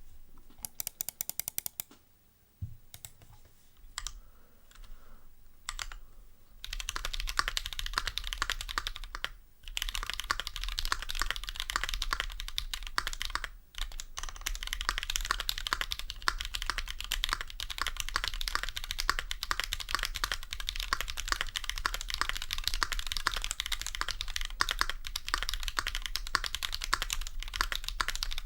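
Keychron Q2 mechanical keyboard with Drop Holy Panda tactile switches lubed with Tribosys 3203, being typed on. A few scattered keystrokes come first, then fast, continuous typing from about six seconds in, broken by two brief pauses.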